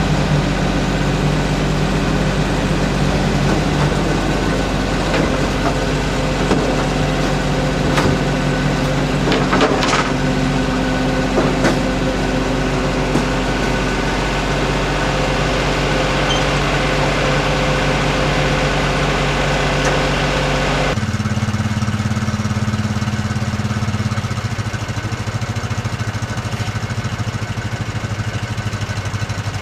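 Engines running at idle, with a few sharp clanks in the middle. About two-thirds of the way through, the engine sound changes suddenly to a deeper, different steady drone.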